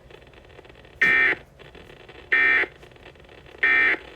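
Emergency Alert System end-of-message (EOM) code: three short bursts of SAME digital data tones, a shrill buzzing screech each, a little over a second apart. Faint radio hiss lies between the bursts. The bursts mark the end of the severe thunderstorm warning.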